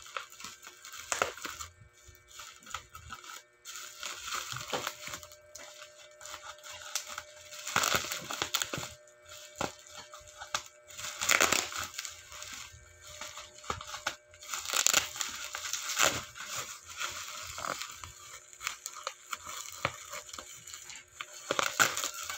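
Bubble wrap and plastic packaging crinkling and rustling in irregular bursts as it is cut with scissors and pulled off a box, with music underneath.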